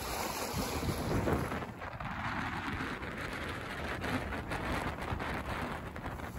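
Wind buffeting the microphone over a steady rush and splash of water along the hull of a sailboat under way in choppy water.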